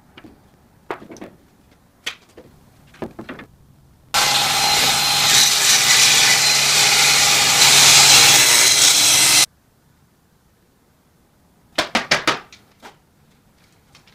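Wooden boards knock as they are handled. Then a table saw runs and cuts wood for about five seconds, starting and stopping abruptly. A short rattle of wood pieces clattering follows.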